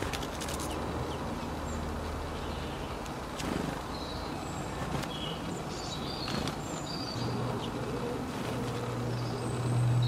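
Garden ambience: scattered short, high chirps of small birds over a steady low hum that grows louder near the end.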